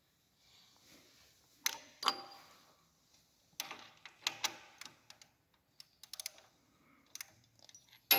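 Metal hand tools and parts being handled: separate light clicks and clanks at uneven intervals, a few louder knocks among them.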